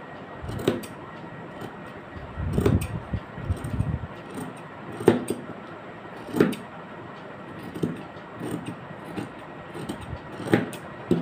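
Fabric scissors cutting through gingham cloth in separate snips, roughly one every one to two seconds, with a short run of cloth rustling about two to four seconds in.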